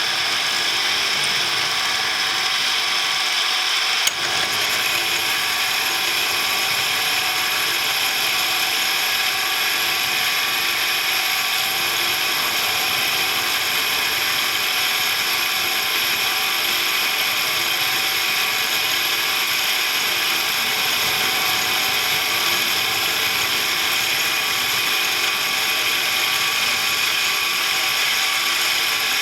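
Machine tool running steadily while boring out the worn seat in a Ural motorcycle's front engine cover, a constant whine of many high tones, with a single sharp click about four seconds in.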